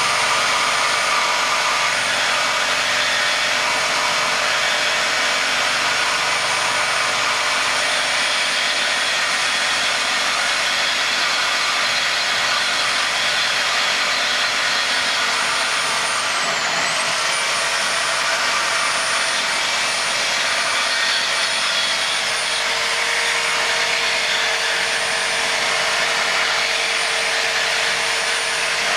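Handheld electric power tool running steadily as it cuts into an overhead pipe, a loud even whine and rush. About two-thirds of the way through its pitch dips briefly and recovers as the motor slows under load.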